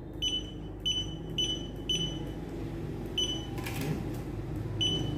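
Zebra DS4608-XD handheld barcode scanner giving six short, high beeps, mostly about half a second apart with a longer gap in the middle. Each beep marks a successful decode of the QR code on an ID card. There is a brief rustle about four seconds in.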